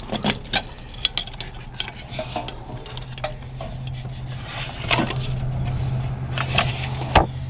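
A bunch of keys jangling and clinking in hand at a metal cluster mailbox, with a sharp metallic click near the end.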